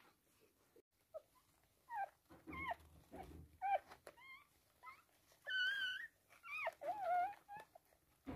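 Newborn toy poodle puppies crying in a string of short, high squeaks that bend in pitch, with one longer wavering cry about two-thirds of the way in. A low rustle of movement comes under the cries a few seconds in.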